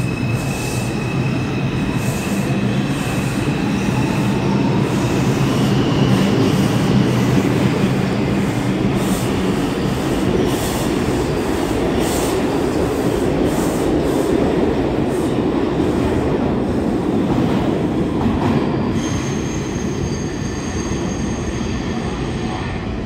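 Bombardier R142 subway train pulling out of an underground station and accelerating into the tunnel: wheels rumbling and clicking over the rail joints while the electric traction motors whine, rising in pitch as it gathers speed. Near the end a steady high thin squeal sets in.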